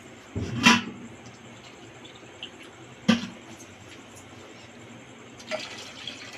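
Two short knocks or splashes, about half a second and three seconds in, then water poured from a plastic cup into a steel pot of sugar near the end.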